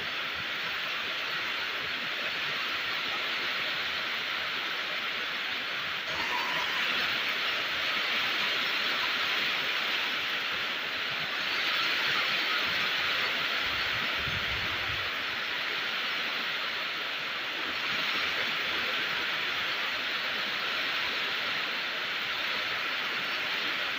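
Steady rain falling, an even hiss that swells slightly a few times, with a brief low rumble a little past halfway.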